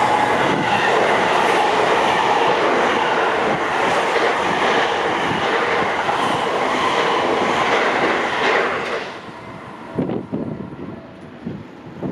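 Loud, steady mechanical rumble and rattle that drops away about nine seconds in, leaving softer scattered low thumps.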